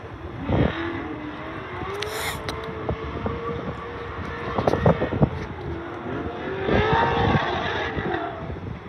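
Freight train wagons rolling slowly past, with a wavering squeal that rises and falls and a few sharp clunks from the running gear.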